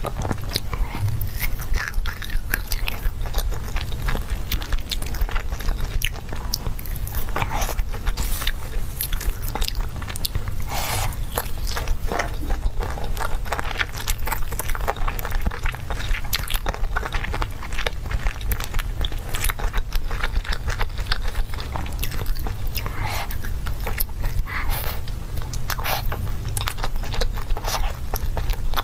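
Close-miked chewing and biting of grilled skewered meat: an irregular, steady run of mouth clicks and crunches.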